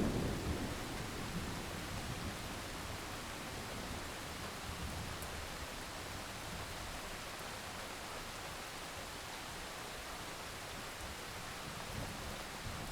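Steady rain hiss, with the tail of a thunder rumble dying away in the first second or two.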